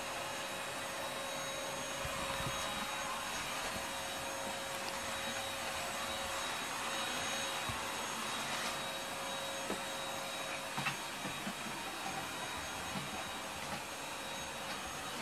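Steady whoosh of a vacuum cleaner running in the background, with a faint motor whine that stops about ten seconds in. Over it, a cat crunches dry kibble from a ceramic bowl with small scattered ticks.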